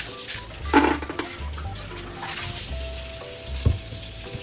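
Food sizzling steadily as it fries, with a loud clatter about a second in and a sharp knock near the end, over background music with a low beat.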